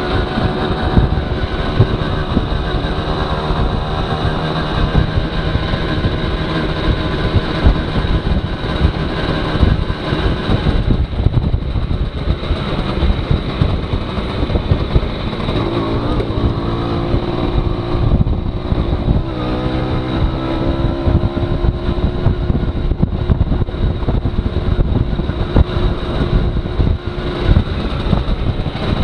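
Aprilia Classic 50 moped's small two-stroke engine running under way, its pitch falling and climbing again with throttle and gear changes, under heavy wind noise on the microphone.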